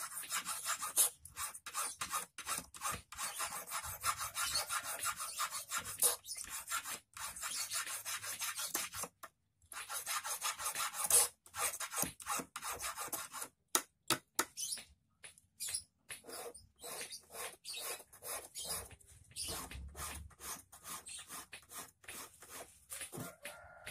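Small hand file rasping back and forth across the tip of a thin metal wire for an eel hook, which rests on a wooden block, in a long run of quick strokes. The filing pauses briefly about nine and a half seconds in, and again, more brokenly, around fourteen to sixteen seconds.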